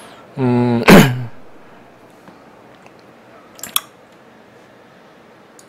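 A man's short closed-mouth hum, like a hesitant "mm", ending in a sharp mouth smack, then a quiet room with a single brief click a few seconds later.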